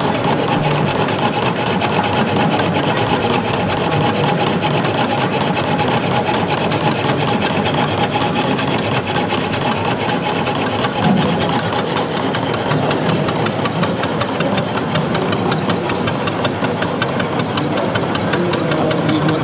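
Scale-model steam-driven frame saw cutting a wooden beam: the blades rasp back and forth through the wood in a rapid, steady rhythm. The small steam engine that drives it runs alongside.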